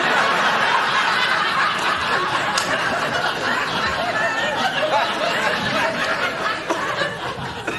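Studio audience laughing, a long sustained laugh from many people that fades away near the end.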